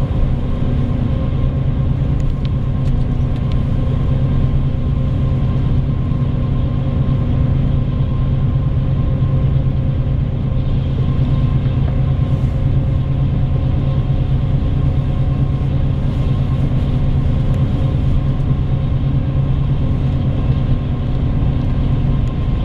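Bus running steadily at speed, heard from inside the passenger cabin: an even engine drone with a low hum and road noise that keep one level throughout.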